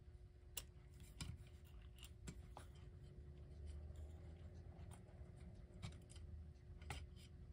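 Quiet handling sounds: scattered light clicks and scrapes of a small screw and screwdriver being worked into the motor mount of a 1952 Jefferson Golden Hour Mystery Clock.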